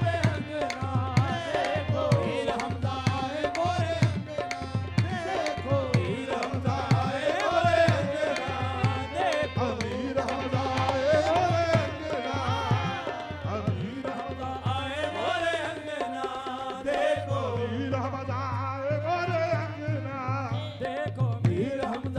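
Qawwali music: harmoniums carrying a wavering melody with singing voices, over a steady tabla rhythm. The low drum strokes thin out briefly in the middle, then come back.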